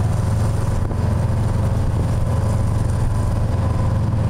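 Cruise boat's engine running steadily under way, a constant low drone.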